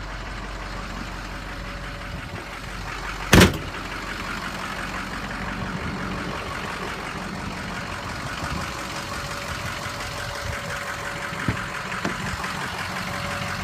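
A pickup truck door slammed shut with one loud bang about three seconds in, then a door latch clicking twice near the end as the other door is opened, over a steady low engine-like hum.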